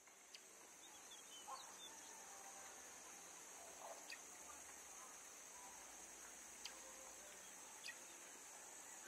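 Near silence: faint steady hiss with a few soft, scattered ticks.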